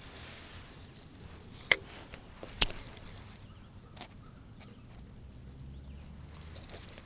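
Two sharp clicks or knocks about a second apart, from fishing gear being handled aboard a kayak, with a few fainter ticks after them.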